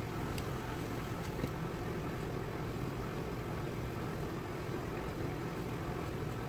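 Steady background noise, an even hum and hiss, with a few faint short clicks about half a second and a second and a half in.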